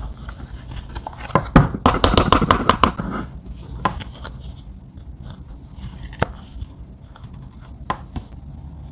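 Crumbled pressed eyeshadow being tapped out of a plastic palette onto slime: a dense run of clicks and crackles between about one and three seconds in, then scattered light ticks as the powder pieces are handled.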